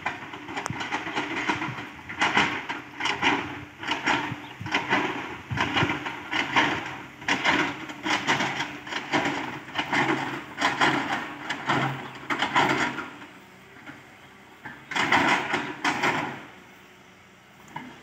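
A cow licking another cow's hide: repeated licking strokes, a little more than one a second, then a short pause and one last longer stroke near the end.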